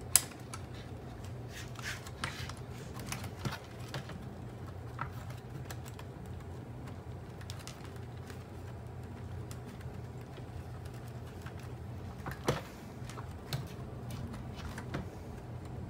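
Irregular small plastic clicks and taps as wires and connectors are pressed into the plastic wire channels of a Shark Ion robot vacuum's chassis. The sharpest click comes right at the start, another loud one about three quarters through, all over a steady low hum.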